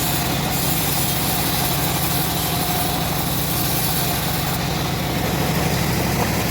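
Homemade bandsaw sawmill running: a steady, unchanging mechanical drone with a faint constant whine over it.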